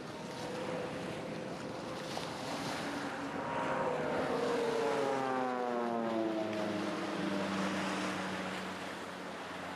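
Yak-52 trainer's nine-cylinder radial engine with propeller, droning as the plane flies low past. It grows louder toward the middle, then drops steadily in pitch as it goes by and away.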